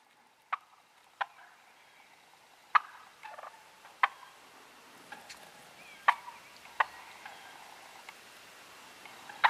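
Wild turkeys calling: a string of about seven short, sharp notes at irregular gaps of one to two seconds, with a few fainter ones between.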